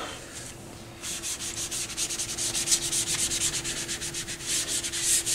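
A cloth being rubbed in quick back-and-forth strokes over a Technics SL-23 turntable's plinth, wiping off a coat of grime. The strokes start about a second in.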